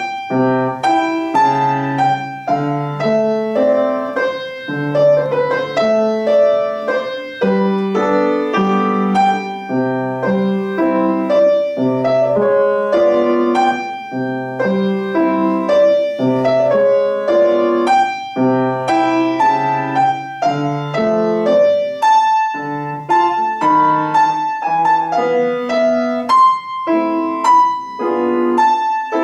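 Solo piano playing a steady flow of notes and chords, each note struck and then fading.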